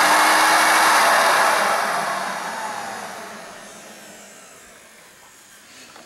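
Hoover Elite 6.0 upright vacuum cleaner's motor running loudly, then switched off about a second in and winding down with a falling whine that fades over several seconds. The motor runs well but the brush roll does not spin.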